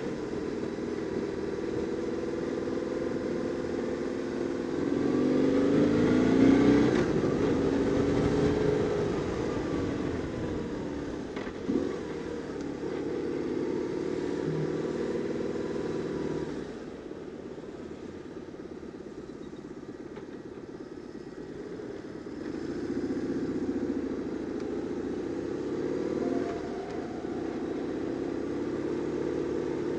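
BMW R850R's air-cooled flat-twin boxer engine running on the move, revving up and easing off about five to nine seconds in and again after twenty seconds, with a quieter low-revving stretch in between. A single sharp click about twelve seconds in.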